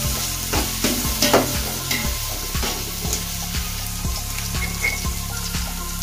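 Freshly added sliced onions sizzling in hot oil in a steel pot, with the scrapes of a perforated steel ladle stirring them, loudest in the first second or so. After that, small ticks and clicks come about three a second over the frying hiss.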